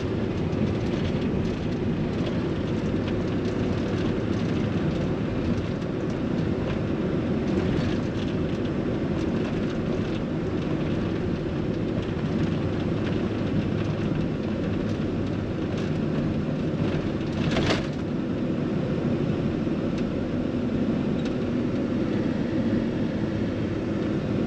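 Steady road and engine noise of a vehicle cruising along a highway, heard from inside the cabin, with one short sharp tick about two-thirds of the way through.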